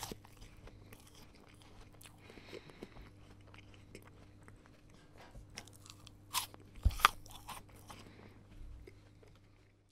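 A person chewing a crisp apple, with a stream of small crunches and a couple of louder crunching bites about two-thirds of the way through, fading out at the end.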